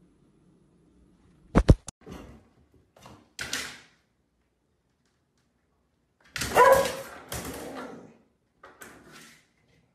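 A dog barking and whining at a front door while jumping up against it, with a few sharp knocks against the door early on. The loudest stretch of barking starts about six seconds in, and a shorter one follows near the end.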